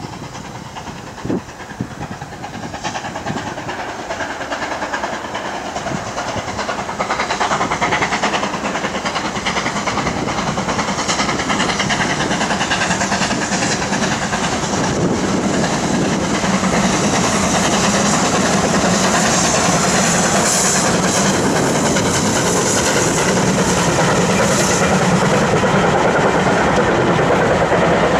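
BR Standard Class 7 Pacific No. 70000 'Britannia' steam locomotive working a train, growing steadily louder as it approaches, then the coaches' wheels clattering over the rail joints as the train runs past. There is a brief sharp knock about a second in.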